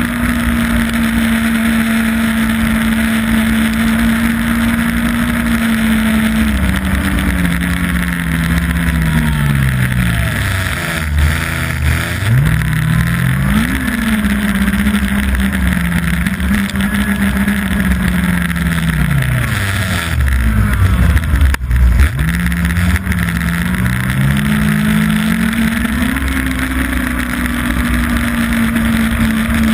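Yamaha Apex snowmobile's four-stroke four-cylinder engine running at trail speed under the rush of wind and track noise. The steady engine note sinks twice as the sled slows, around a quarter and two-thirds of the way in, and climbs back each time as it speeds up again.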